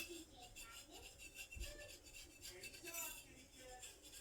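Faint, indistinct voices talking quietly, with a sharp click right at the start.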